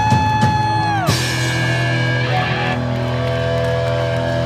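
Live rock band playing electric guitars, bass and drums: held notes bent up and down, a cymbal crash about a second in, then held notes ringing on steadily.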